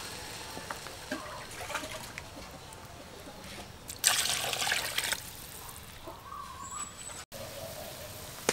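Water poured from a container into a metal pot of chopped vegetables, splashing loudly for about a second midway, with quieter trickles and knocks before it. After a cut near the end, a quiet steady hiss of the soup boiling.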